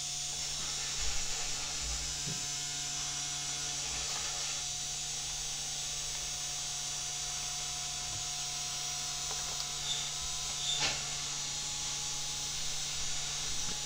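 Steady electrical hum with a few brief whirs from the stepper motors of a Genmitsu 3018-Pro desktop CNC as its axes are jogged into position, and a few faint clicks.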